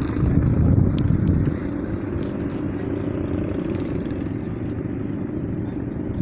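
Steady low rumble of a moving vehicle, louder for the first second and a half, with a couple of faint clicks.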